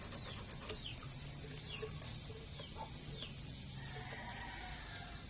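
Birds calling in the background: short falling chirps repeated every half second or so, with a few faint clicks.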